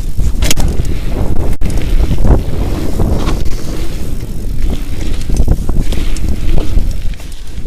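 Mountain bike descending a dirt singletrail at speed: wind buffeting the microphone, tyres rolling on the packed dirt, and frequent knocks and rattles from the bike over the bumps.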